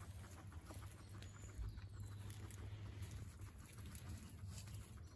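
Guinea pigs on hay and straw: faint small ticks and rustles over a steady low hum.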